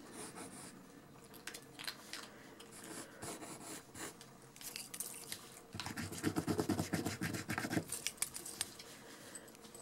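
Pencil scratching on paper in short, quick strokes, sketching fur. From about six to eight seconds in, the strokes come faster and louder.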